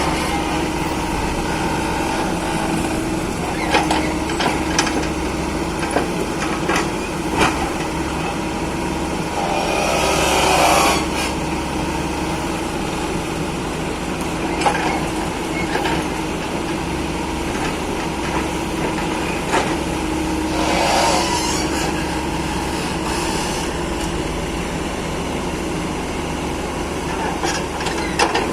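Hydraulic excavator's diesel engine running steadily as it loads soil into a truck. Scattered sharp knocks and clanks are heard, along with two longer rushing noises, about ten seconds in and again about twenty-one seconds in.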